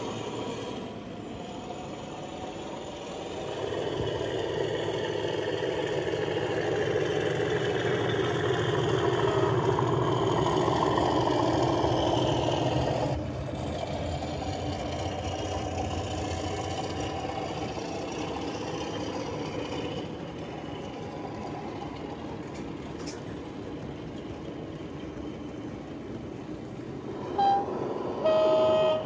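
Model diesel locomotive's digital sound decoder playing engine sound through its onboard speaker, working hard in heavy-train mode as it pulls away, building up from about three seconds in and dropping back suddenly about halfway. Near the end come two short horn blasts, the second lower in pitch and longer.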